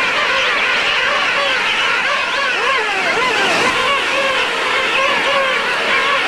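Dense chorus of many king penguins calling at once: a steady din of overlapping, warbling trumpet calls, over the wash of surf.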